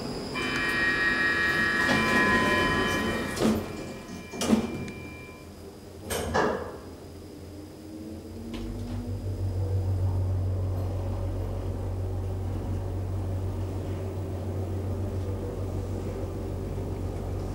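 Schindler hydraulic elevator: a high electronic tone sounds for a couple of seconds while the glass car doors slide shut with a few knocks and a thud. About eight seconds in the hydraulic pump motor starts with a steady low hum as the car moves.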